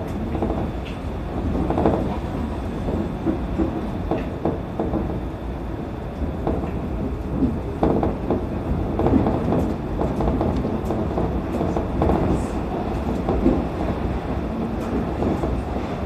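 Shonan Monorail suspended (SAFEGE) car running on its rubber tyres inside the overhead track, heard from the driver's cab: a steady rumble with frequent irregular rattles and knocks.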